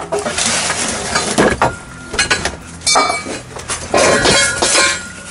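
Metal pipes and wooden boards clattering and clinking as they are shifted and dragged out across the cargo floor of a UAZ, a run of knocks, with a pipe ringing briefly about three seconds in.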